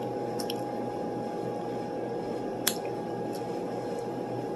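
Steady room noise from running equipment: a low hum and hiss with a thin steady whine, broken by a few faint clicks, one sharper about two and a half seconds in.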